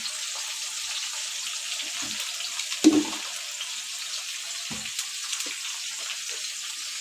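Green chilli, coriander and garlic paste with turmeric sizzling in hot oil in an aluminium kadhai, a steady hiss. A few light knocks break in, the loudest about three seconds in.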